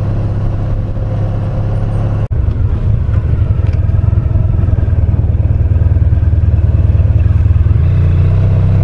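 Honda VFR1200X's V4 engine running at a low, steady note as the bike rolls up to a junction, with a brief dropout a little over two seconds in. Near the end the engine note steps up as the bike pulls away.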